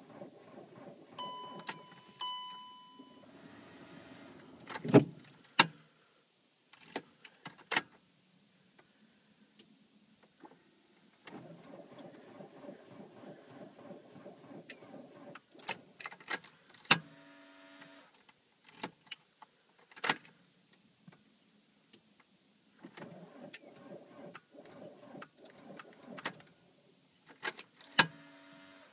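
A Volkswagen Golf V 2.0 TDI diesel (engine code BMN) is cranked on its starter in several short attempts that do not catch: a cold-start problem. Loud clicks from the ignition switch and relays come between the attempts, and a steady warning beep sounds near the start.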